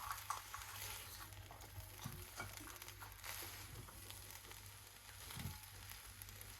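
Faint sizzling of food frying in a pan, with a few light clicks and knocks.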